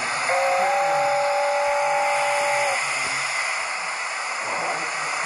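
A model steam locomotive's sound-system chime whistle: a two-note chord held for about two and a half seconds. It sounds over a steady hiss.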